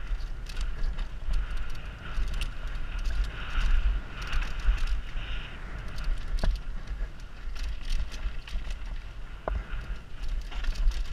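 Mountain bike running fast down a rough dirt trail: tyres rumbling over dirt and rocks, the bike rattling and clicking, wind buffeting the helmet-mounted microphone. Two sharp knocks stand out in the second half.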